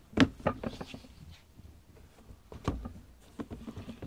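Handling noise from a basketball sneaker being turned over against its cardboard shoebox: a sharp knock just after the start, another a little before three seconds, and a quick run of lighter knocks near the end, with rubbing in between.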